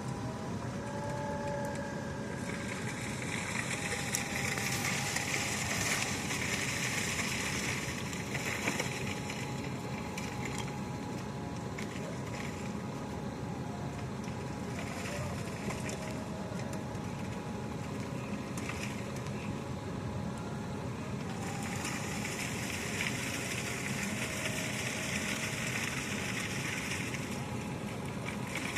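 Construction machinery running steadily during a concrete pour, with a higher hissing whine that comes in twice, from about two seconds in until about nine seconds, and again near the end.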